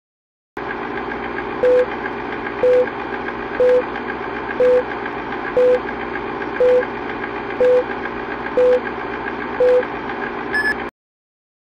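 Film-leader countdown effect: a steady film-projector whir and clatter with a short beep once a second, nine beeps in all, then a brief higher blip just before it cuts off abruptly.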